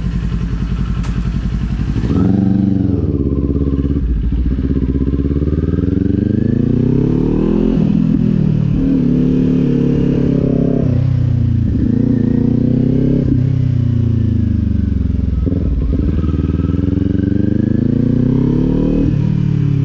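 Kawasaki Z400's parallel-twin engine, fitted with an aftermarket exhaust, running at low revs, then pulling away about two seconds in and accelerating up through the gears. The engine pitch climbs and drops back at each shift, four or five times.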